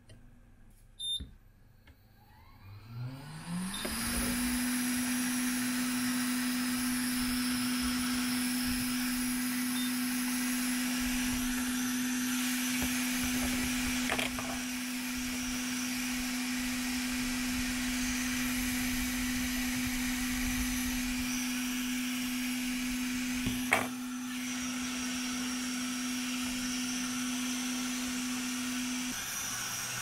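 Heat gun switched on about three seconds in: its blower motor spins up with a rising hum that settles into a steady hum over a strong rush of air, heating the solder on a tablet's charging port. Two brief clicks come about ten seconds apart, the second louder, and near the end the hum stops while the air rush goes on.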